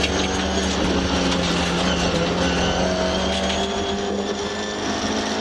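Ford Escort RS2000 Mk2 rally car's 2.0-litre four-cylinder engine pulling at steady high revs, heard from inside the cabin at about 100 km/h. The pitch holds steady, with a slight dip in loudness around four seconds in.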